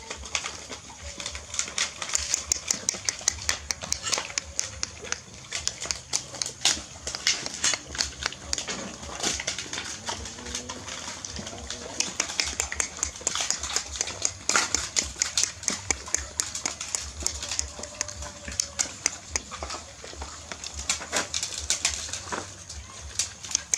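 Puppies and adult dogs eating together from food bowls: many rapid, overlapping mouth clicks and smacks.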